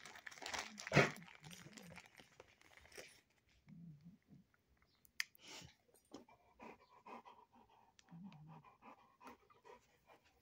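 A big dog panting close up, loudest in the first three seconds with a sharp knock about a second in, then quieter breathing and small clicks.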